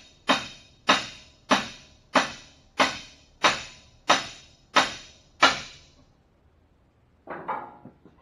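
Steady hammer blows, about one every two-thirds of a second, each with a short ringing decay, as a camshaft bearing is driven into a Cummins Big Cam IV engine block. The strikes stop about five and a half seconds in, and a brief clatter of tools follows near the end.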